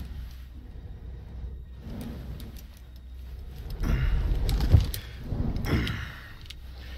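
Pliers gripping and wrenching at a tooth in an Indoraptor's jaw, with a sharp crack about two-thirds of the way in, over a low steady rumble.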